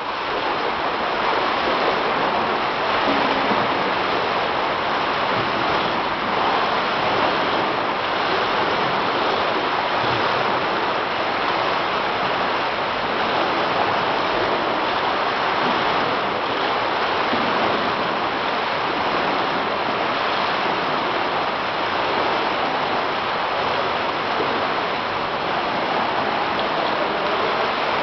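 Swimmers' arms and legs splashing and churning the water of an indoor pool, a steady continuous wash of water noise.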